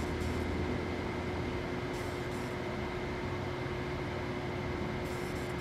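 Steady machine hum with a constant tone, the background of a shop, with faint brief crinkles of a handheld plastic bag about two seconds in and near the end.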